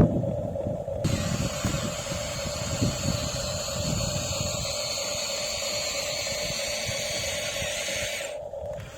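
Radio-controlled excavator running, its motor giving a steady whine, with an uneven low rumble underneath. A hiss starts about a second in and cuts off suddenly near the end.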